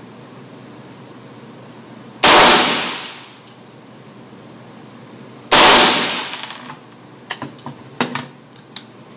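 Two shots from a suppressed 300 Blackout AR-15 firing 115-grain supersonic rounds, about three seconds apart, each with about a second of echoing tail. A string of light clicks and clinks follows.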